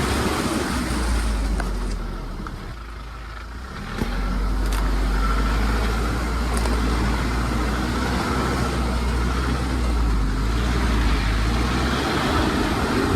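Car engine running under load on a steep, muddy dirt track, with tyre and road noise. It eases off about two seconds in, then picks up again from about four seconds.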